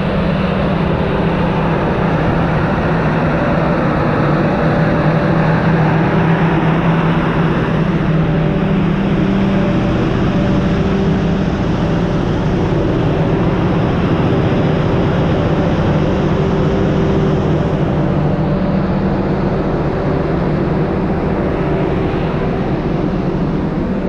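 Gasoline generator engine running steadily at a constant speed, with an even hum, powering an electric bus charger.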